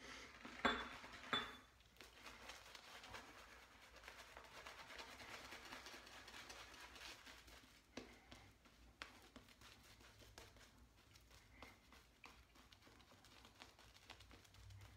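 Faint bristly swishing of a synthetic shaving brush working shaving cream into lather, with a few light knocks and clicks, two of them about a second in.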